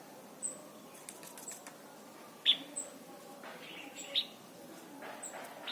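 Red-whiskered bulbul calling in short, sharp chirps spaced about a second apart, the loudest about halfway through. A few faint clicks come about a second in.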